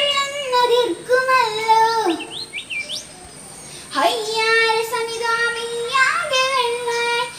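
A young girl sings a Malayalam poem in the traditional chanted-melody style of recitation, her voice holding long steady notes. About two seconds in the singing breaks off. A few quick rising chirps follow, and after a short pause she sings on.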